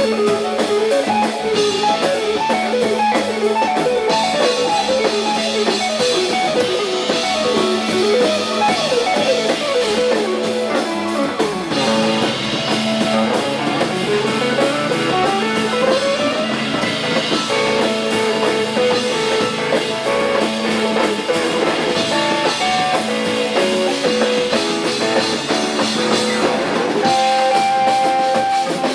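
Instrumental band music: electric guitar lines over keyboard, bass and drum kit, with a rising melodic run about halfway through.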